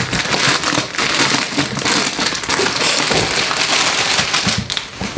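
Plastic packaging crinkling and rustling as it is handled and pulled open, a dense crackle throughout that eases near the end.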